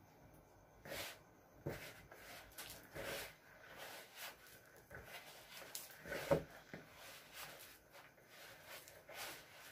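Hands kneading a crumbly milk-powder and condensed-milk paste in a plastic bowl: faint, irregular squishing and rubbing, the loudest a little past six seconds in.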